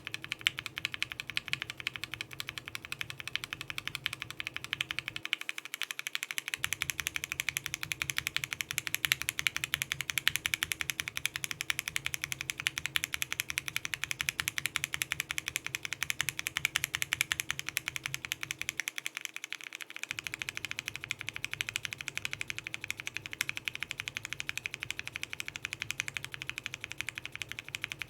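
Fast, continuous typing on a mechanical keyboard with linear Gateron Ink frankenswitches and PBT keycaps, a dense clatter of keystrokes. The switch build changes twice with brief breaks: Ink housing with an alpaca top, then with a cream top, then with a Gateron milky top and Gateron Yellow stem.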